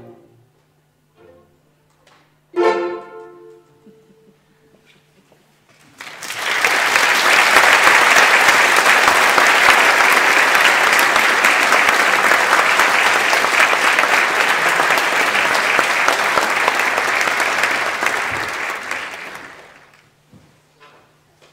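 A string orchestra plays a few short pizzicato notes and a final plucked chord that rings briefly. After a short pause the audience applauds loudly for about fourteen seconds, the clapping dying away near the end.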